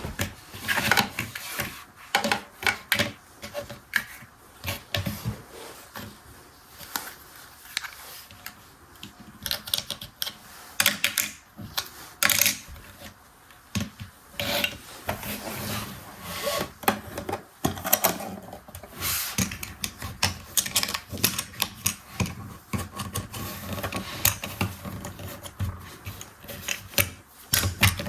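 Small plastic toy parts being handled: irregular clicks, taps and rubbing scrapes.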